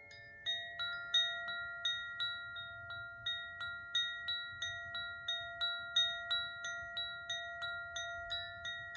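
Koshi chime being swung, its inner striker hitting the tuned rods about three times a second so that a cluster of sweet, sustained bell-like notes keeps ringing and overlapping. The set of notes changes about half a second in.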